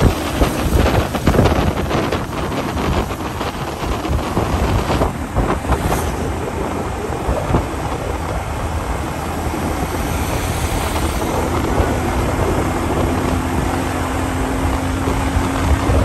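Wind buffeting a microphone on a moving road vehicle, over steady engine and tyre noise. A faint steady hum comes in about eleven seconds in.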